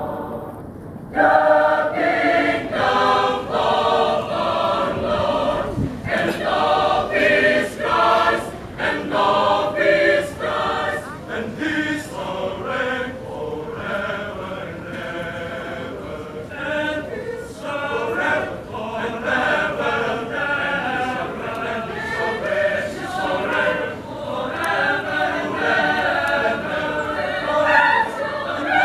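Choir singing, coming in suddenly and loudly about a second in and carrying on with many voices together.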